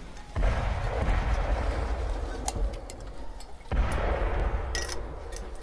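Two artillery shell explosions, each a sudden low boom that rumbles away, the first just after the start and the second a little past halfway. Scattered sharp cracks sound between and after them.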